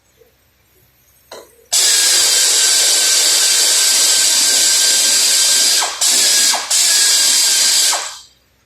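A power tool running in one long burst of about six seconds, released and restarted twice in quick succession near the end.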